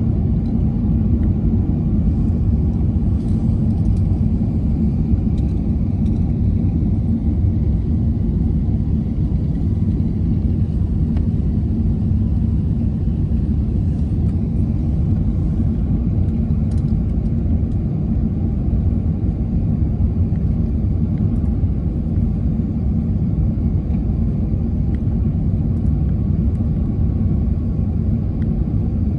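Steady low rumble of an Airbus A380 airliner in flight, its engines and airflow heard from inside the passenger cabin, with no change in level.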